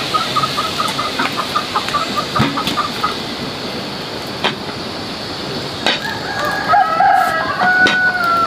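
Chickens: a quick run of short clucking notes for the first three seconds, then a rooster crowing one long call near the end. Scattered sharp clicks are heard throughout.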